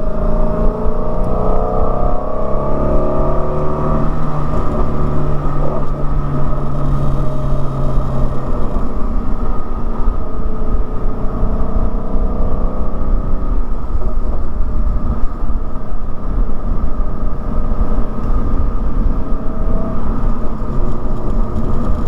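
Shelby GT350's 5.2-litre flat-plane-crank V8 running under way, its pitch climbing in the first few seconds as it accelerates, then settling into a steady low drone.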